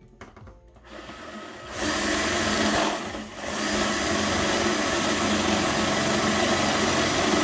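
Electric drill boring the lower mounting hole through a kart seat. The motor runs up about two seconds in, eases briefly a second later, then runs steadily under load.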